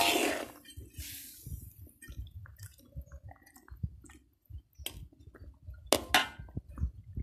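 A metal spoon stirring a coconut-milk curry in a wok: wet squelching of the liquid and vegetables, with sharp knocks of the spoon against the wok, the loudest right at the start and two more about five and six seconds in.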